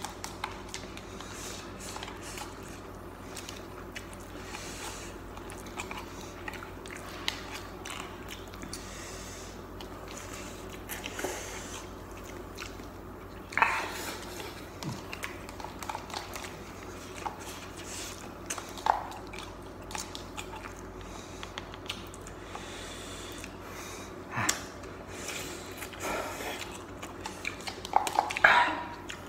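Two people eating spicy instant cup noodles at close range: chewing and biting noises, with short louder mouth sounds now and then over a low steady hum.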